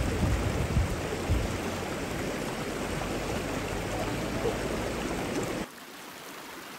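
Creek water running over rocks, a steady rushing hiss, with a few low thumps in the first second or so. About five and a half seconds in it drops abruptly to a quieter, thinner rush.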